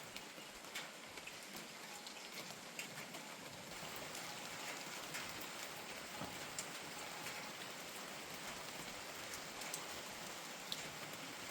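Steady rain falling, with scattered single drops ticking sharply on nearby surfaces.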